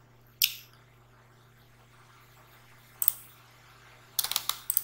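Sharp clicks from operating a computer during drawing work: one click about half a second in, another about three seconds in, and a quick run of clicks near the end. A steady low electrical hum sits underneath.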